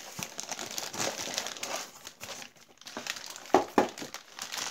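Clear plastic packaging bag crinkling and rustling as a boxed speedometer assembly is handled and lifted out of its cardboard box, with two sharp knocks in quick succession about three and a half seconds in.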